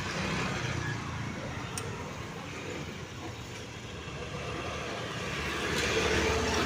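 Steady background noise of road traffic, with a faint click of metal tools about two seconds in.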